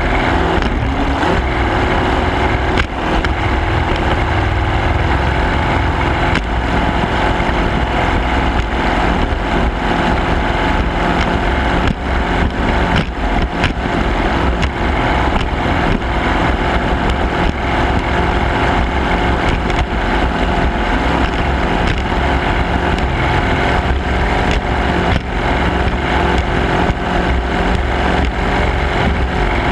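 Racing garvey's engine running hard at a steady pitch, with wind buffeting the microphone and the hull knocking against the chop.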